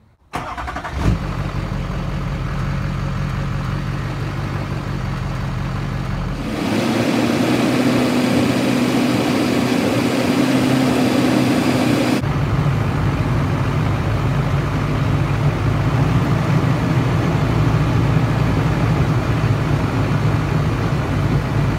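Chevy Silverado's Duramax diesel engine running steadily. The sound changes abruptly about six seconds in, with more hiss, and again about twelve seconds in, with a heavier low rumble.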